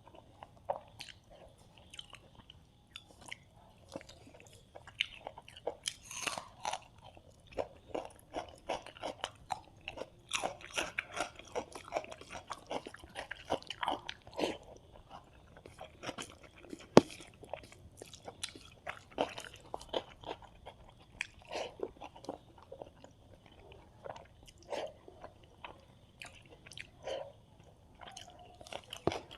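Close-miked eating sounds of a person eating rice with fried fish, eggs and curry: chewing and crunching with many irregular small clicks. One sharp click about halfway through is the loudest.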